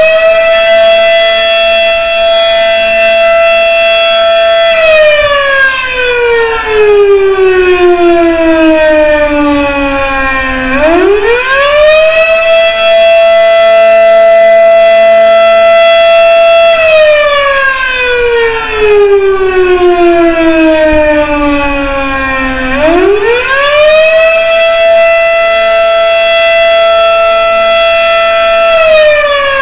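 Federal Sign and Signal Model 7 outdoor warning siren sounding a wail: a loud single-tone howl that climbs quickly in pitch, holds steady for several seconds, then slides slowly down. The climb comes back twice, about 11 and 23 seconds in, so each cycle takes about 12 seconds.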